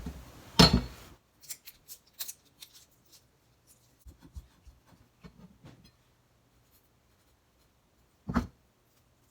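Small kitchen handling sounds during shrimp prep: a sharp knock about half a second in, a run of light clicks and taps, then a single knock near the end.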